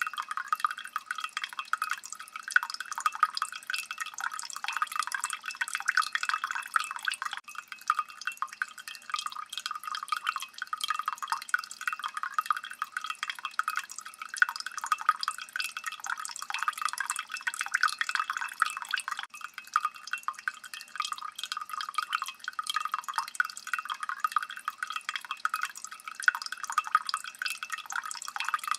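Water dripping steadily, many small drops falling in quick succession.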